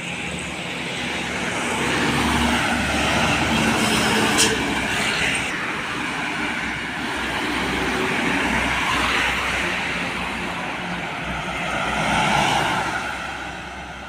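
Road traffic passing: vehicles go by one after another, their engine rumble and tyre noise swelling and fading three times. There is a short sharp click about four seconds in.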